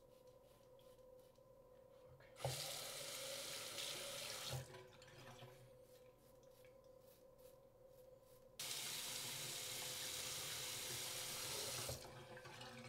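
Bathroom sink tap running twice, water splashing into the basin: first for about two seconds, then for about three and a half, each time switched on and off abruptly.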